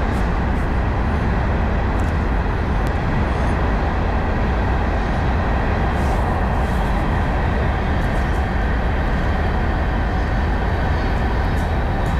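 Steady low rumbling background noise, even throughout, with a few faint clicks.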